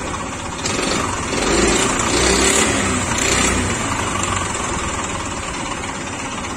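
Honda Activa scooter's single-cylinder four-stroke engine running, revved with the throttle from under a second in, held for about three seconds, then falling back to idle. It is being run to show a crank knock, from a worn crankshaft with play up-and-down and sideways.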